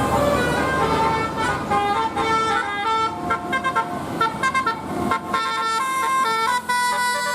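Bus 'telolet' multi-tone horn playing a tune: a quick run of short, bright notes stepping up and down in pitch.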